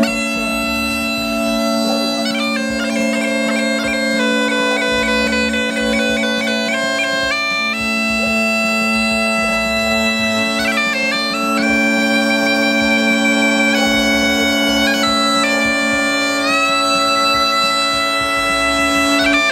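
Bagpipe playing a tune: a melody on the chanter, with quick grace notes, over steady unbroken drones.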